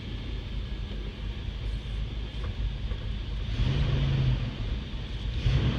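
Chevrolet K20 pickup's engine running soon after a hard cold start, heard from inside the cab. It swells louder twice, about three and a half seconds in and again near the end, as the gas pedal is pumped.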